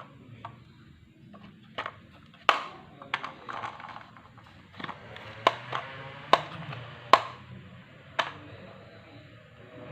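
Marbles rolling down a HABA wooden marble run, with about a dozen sharp, ringing clacks at irregular intervals as they drop and strike the wooden track pieces over a low rolling rumble.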